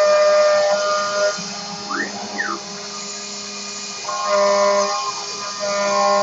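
CNC milling machine cutting V95 aluminium alloy with a 12 mm end mill: a steady whine of several tones from the spindle and axis drives, with a brief glide up and back down in pitch about two seconds in, and the tones shifting and growing louder from about four seconds in.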